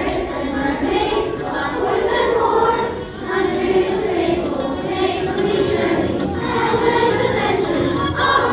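A choir of children singing a song together.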